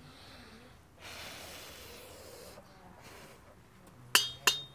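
A breathy rush of air for about a second and a half, then near the end two sharp metallic clinks: a long metal poker knocking against the kettle barbecue grill while stirring the charcoal.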